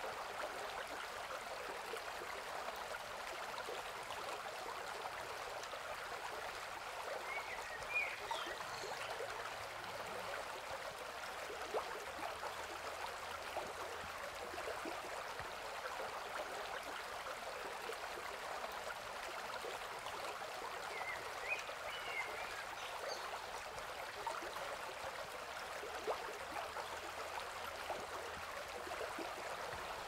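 Steady rushing of flowing water, with a few faint short bird chirps about eight seconds in and again around twenty-one to twenty-two seconds, and an occasional soft click.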